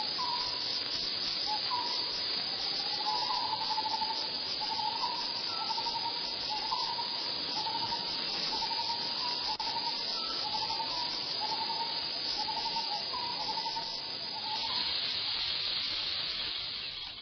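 Forest insects, cicadas or crickets, keep up a steady high-pitched buzzing chorus. A bird calls a short note over and over, roughly one to two calls a second, stopping about 14 seconds in. The insect buzz grows louder near the end.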